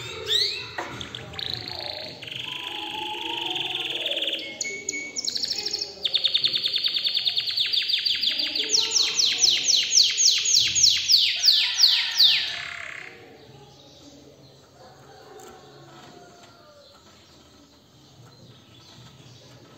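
Domestic canary singing a long, excited song of rolling trills: a steady buzzing roll, then a fast run of notes, then a louder series of repeated falling notes about four a second, stopping about thirteen seconds in.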